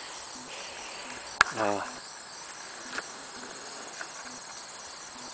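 Steady high-pitched chorus of insects chirring without a break. About a second and a half in, a sharp click is followed by a brief voice-like sound.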